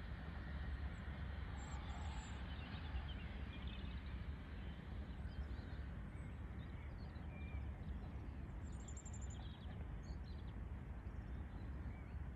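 Outdoor ambience: a steady low rumble, with faint high bird chirps about two seconds in and again around nine seconds in.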